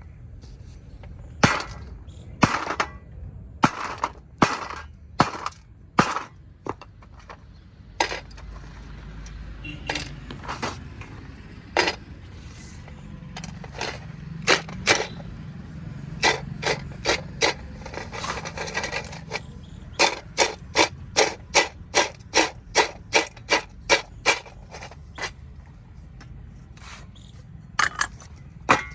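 Dry clay kulhad cups being broken and crushed, a series of sharp cracks and crunches. They come irregularly at first, then in a quick run of about two a second in the second half.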